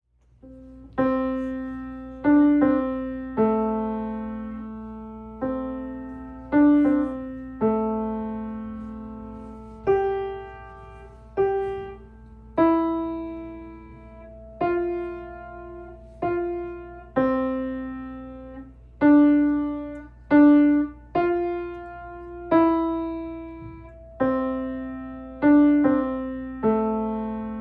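Piano music: a slow piece of chords struck one after another, each left to ring and fade, starting about a second in.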